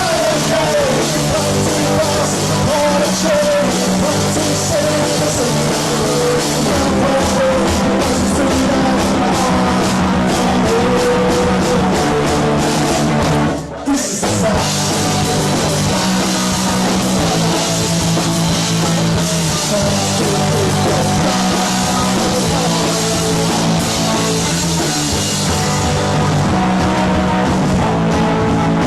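Live punk rock band playing loud and steady on electric guitars, bass guitar and drum kit. About halfway through there is a brief stop of under a second before the band comes back in.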